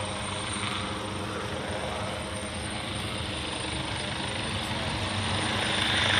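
Italian Air Force HH-139B (AW139-type) twin-turbine helicopter flying past: a steady rotor and turbine sound with a low hum, growing louder near the end.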